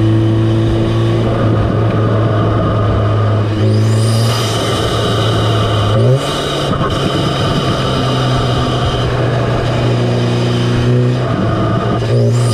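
Intake sound of an Audi S3's turbocharged 2.0-litre four-cylinder engine running through an APR carbon fiber open intake, heard up close in the engine bay. The engine note changes pitch a few times, stepping up about 6 seconds in, with a rising whistle about 4 seconds in and again near the end.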